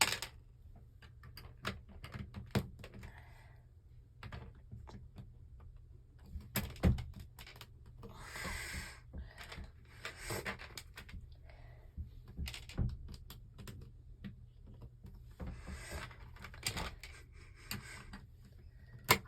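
Plastic Lego bricks clicking and clattering, with scattered sharp clicks and a few longer rustling spells as loose pieces are handled.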